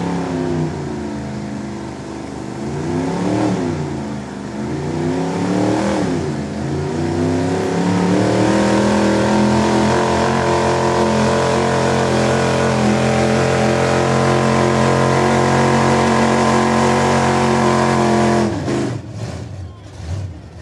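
Ford F-series pickup's engine under full load pulling the sled. It revs up and down a few times, is then held at steady high revs for about ten seconds, and its revs drop sharply near the end.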